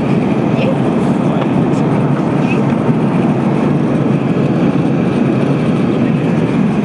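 Steady cabin noise of an Airbus A380 in cruise: an even, unchanging low rush of airflow and engine noise.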